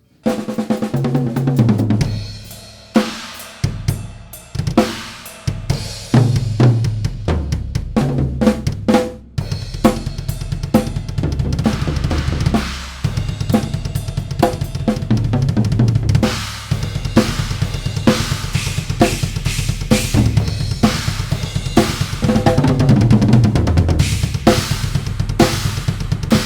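Drum kit demonstrating a 22-inch Wuhan China cymbal. For the first nine seconds or so the cymbal is struck in separate hits, each left to ring and die away. After that comes a continuous beat with bass drum and snare, the cymbal played over it.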